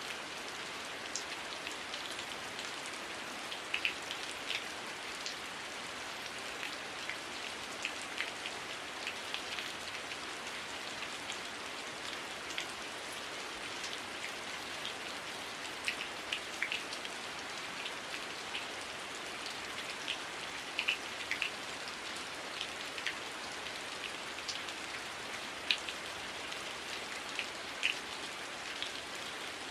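Heavy rain falling steadily, an even hiss with individual drops ticking sharply here and there.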